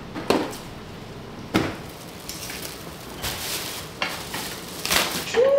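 Plastic grocery bags rustling and crinkling as groceries are unpacked, with two sharp knocks in the first two seconds.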